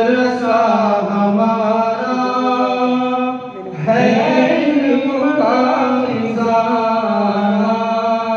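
A man singing a naat, an Islamic devotional song, in long held, ornamented phrases. There is a short break between phrases about three and a half seconds in.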